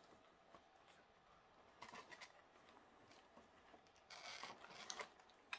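Faint rustling and clicking of plastic packaging: a clear plastic wrapper and a plastic blister tray being handled. A brief louder crinkle comes about four seconds in, with a sharp click near the end.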